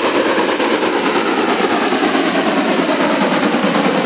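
Steam locomotive running at speed with a train of passenger coaches, its exhaust chuffing fast and steadily.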